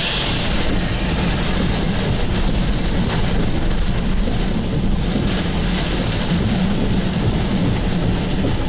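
Heavy wind-driven rain and strong rear-flank downdraft winds battering a moving car, heard from inside the cabin: a loud, steady rush of rain and wind with a deep low rumble.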